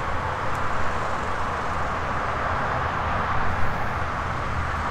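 Steady hum of distant road traffic: a constant low rumble and hiss with no distinct events.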